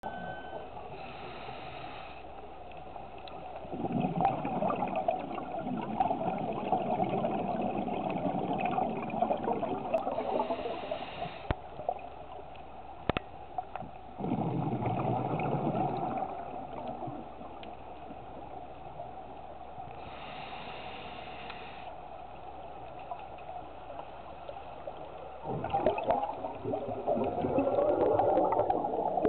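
A scuba diver breathing through a regulator underwater: a short hiss of inhalation about every ten seconds, each followed by a longer, louder rush of exhaled bubbles.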